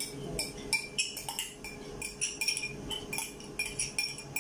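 A metal utensil stirring in a glass mixing bowl, clinking against the glass in a quick, irregular run of clinks.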